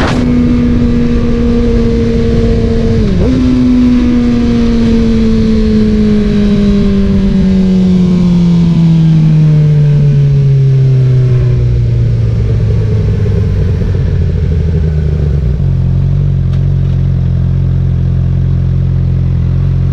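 Suzuki GSX-R600's inline-four engine through an M4 slip-on exhaust. It holds a steady note, dips briefly about three seconds in, then falls slowly in pitch as the bike slows, and settles into a low steady note near the end.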